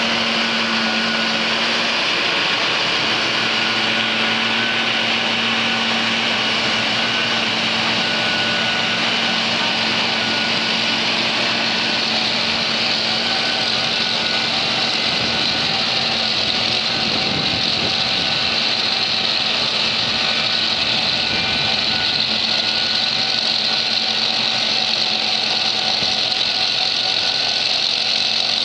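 Engine of an Inter-Drain 1515 HT tracked chain trencher running steadily, a constant mechanical drone with a hissing upper edge.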